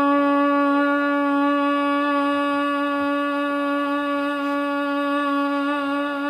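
A person's voice holding one long note at a steady pitch, like a sustained sung or hummed tone.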